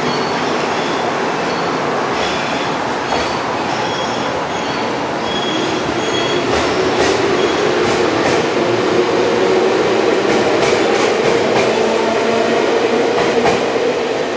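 JR West 221 series electric train pulling out of the station and gathering speed: its cars rumble past, and a traction-motor hum grows louder and climbs slightly in pitch as it accelerates, with an occasional clack from the wheels.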